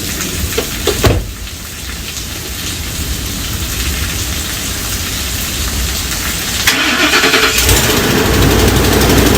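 Steady rain hissing, with a single thump about a second in. Near the end a truck engine is cranked, catches and settles into a low idle.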